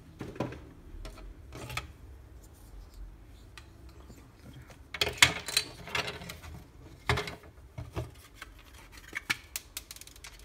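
Hard plastic parts of a cordless hand vacuum being handled and pulled apart: scattered clicks, knocks and scrapes of the housing and motor assembly, busier from about halfway through.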